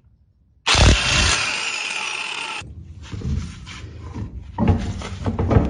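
A power tool running in one burst of about two seconds that starts and stops abruptly, followed by a run of irregular knocks and clatter of metal parts and tools.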